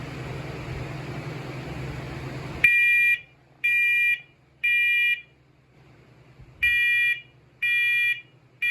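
A steady hiss cuts off suddenly, then a smoke alarm's horn sounds under test in the temporal-three evacuation pattern: three short beeps about a second apart, a pause, then three more.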